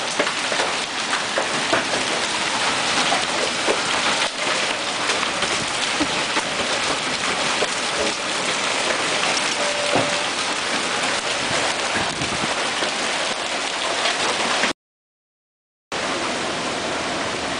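Heavy rain and large hail pelting down in a steady roar, dotted with many sharp hits of individual hailstones. The sound drops out completely for about a second near the end, then the roar of the downpour resumes.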